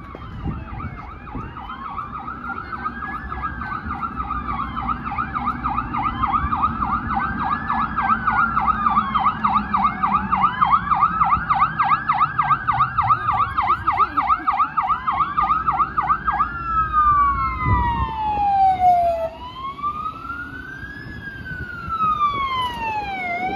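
Fire engine sirens on an emergency run: a fast yelp and a slower wail sweep up and down together over the trucks' engine rumble. About 16 seconds in the yelp stops, and the wail dips lower in pitch and carries on.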